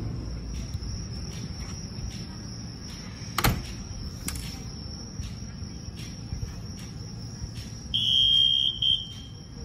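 Electric commuter train standing at a station platform with a low steady hum, under steady chirping of insects. There is a sharp click about a third of the way in. Near the end a loud, high, steady signal tone sounds for about a second, followed by a short second beep.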